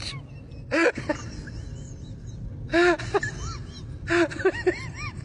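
Dachshund giving short whining howls that rise and fall in pitch, with louder cries about a second, three seconds and four seconds in and smaller ones between.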